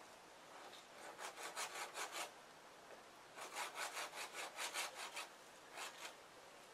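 Hand saw cutting into a tree branch in quick back-and-forth strokes: two runs of strokes, then a couple more near the end.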